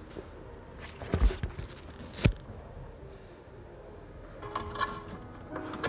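A few sharp knocks over a quiet background, the loudest about two seconds in, then background music with plucked strings starting near the end.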